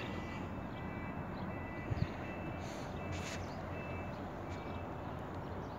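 Steady outdoor background noise with faint, repeated high beeping tones that come and go, and a soft knock about two seconds in.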